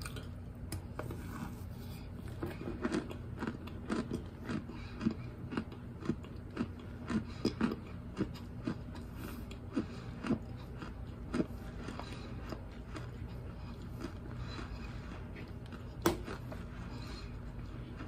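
A person chewing chunks of baked cornstarch: a run of short, crisp crunches, several a second, that thin out after about twelve seconds, with one louder crunch near the end.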